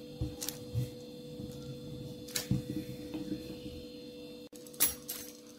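A few light knocks and taps from a long wooden rolling pin being handled on rolled-out dough on a table, over a steady electrical hum.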